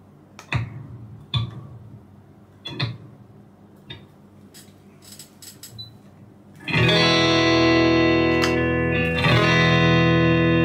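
A few sharp clicks and taps from screwdriver work on a Stratocaster's middle pickup height screws. About seven seconds in, a chord is strummed on the electric guitar through an amp and left ringing, struck again about two and a half seconds later, a check of the newly lowered middle pickup's volume against the neck pickup.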